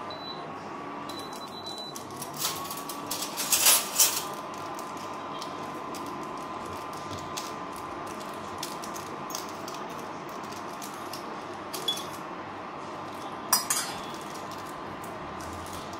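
Maggi tastemaker sachet being handled and its powder shaken into a steel pan: crinkling packet and sharp clicks and clinks against the pan. The loudest burst comes about three to four seconds in, with shorter ones near the end. Under this runs an induction cooktop's steady hum with a thin high tone.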